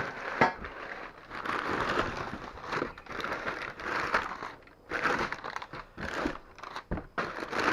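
Packing paper being handled, crumpling and rustling in irregular bursts, with a couple of sharp knocks.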